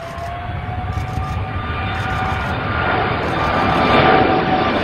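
Jet airliner engines on a low approach, a Tupolev Tu-154's rear-mounted turbofans among them, grow steadily louder as the aircraft close on the runway: a low rumble with a steady turbine whine over it.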